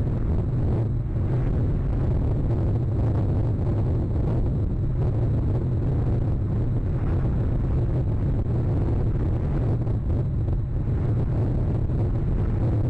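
Storm wind buffeting the nest camera's microphone: a steady, loud low rumble with rushing noise above it.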